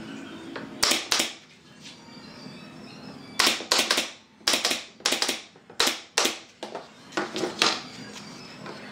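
Pneumatic nail gun firing about a dozen sharp shots in irregular groups, driving nails into pallet-wood boards on a door panel.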